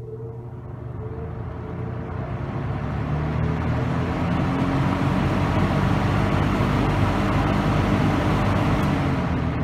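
Dayton 4C418 20-inch box fan starting up on high from rest: the motor hums, and the rush of air builds over the first few seconds as the blades come up to speed, then settles into steady running on high.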